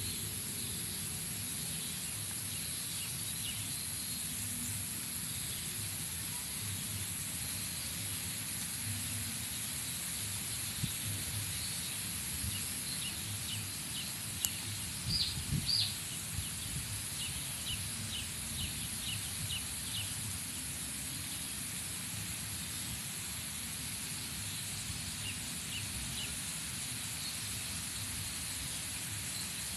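Outdoor ambience: a steady hiss with a high, even whine, and runs of short, quick high chirps from a small animal or bird, the loudest a pair about fifteen seconds in.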